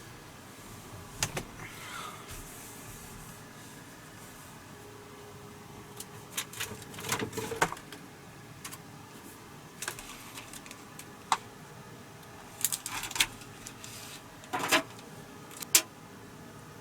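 Scattered clicks, clinks and light knocks of small objects being handled, some single and some in short clusters, over a steady low hiss.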